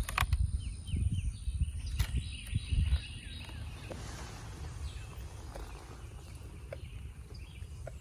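A wooden beehive box being slid back off its bottom board, with low knocks and rubbing for about the first three seconds. After that, a quiet outdoor background with a few faint bird chirps and occasional small clicks.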